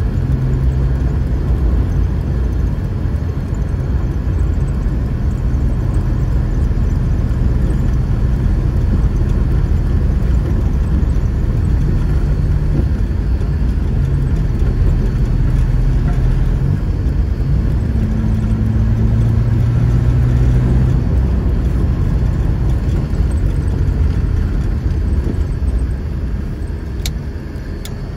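Cabin sound of a 1989 Volvo 240 GL driving on an unpaved road: the engine runs with steady tyre and road rumble, and its note rises and falls partway through. The sound gets quieter near the end.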